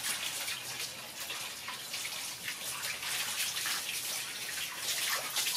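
Water from a garden hose pouring steadily into a plastic bucket of water and splashing.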